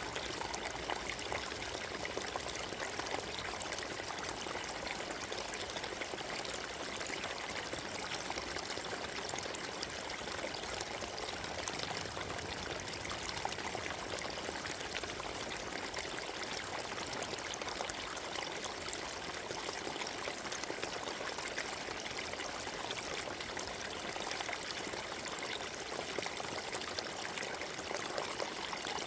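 Forest stream running over stones, a steady gurgling rush of water with no change throughout.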